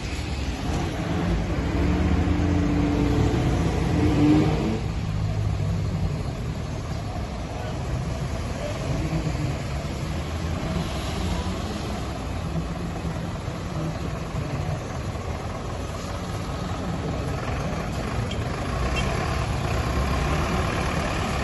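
Street traffic on a wet road: car, bus and truck engines running and pulling through, with a broad hiss of tyres on wet asphalt. A louder engine rises in pitch about four seconds in.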